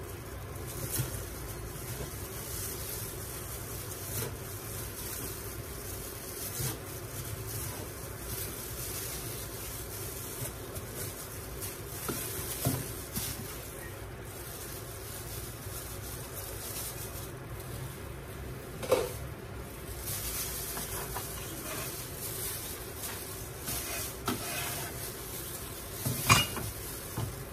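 Kitchen cooking sounds: a steady sizzling hiss while a utensil stirs and knocks against cookware several times, the loudest clink about two-thirds of the way through.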